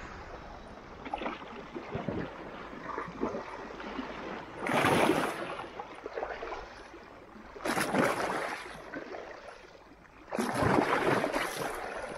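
Sea waves washing and splashing against a rocky shore, with three louder surges about five, eight and eleven seconds in.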